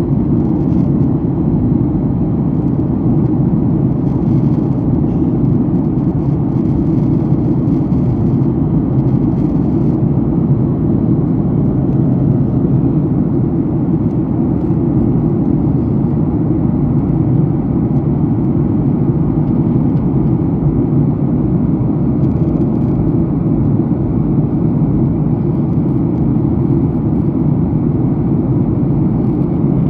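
Steady cabin noise of a jet airliner in flight: an even, unbroken low rush of engines and airflow.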